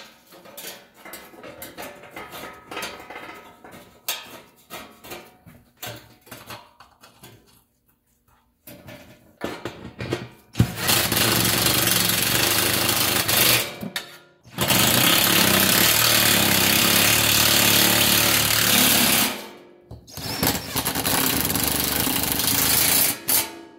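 Light metal clinks and rattles as the exhaust heat shield and its bolts are handled, then a cordless impact wrench hammering the shield bolts tight. It runs in two long bursts, of about three and about five seconds, and finishes with shorter bursts near the end.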